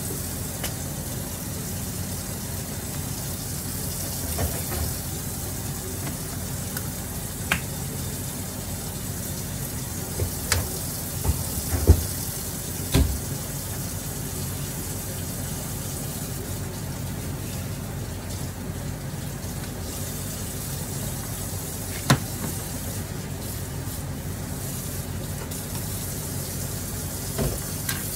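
Meat sizzling in a pan as pork and chicken adobo cooks, a steady frying hiss broken by a few sharp knocks of a utensil against the pan, the loudest about twelve seconds in.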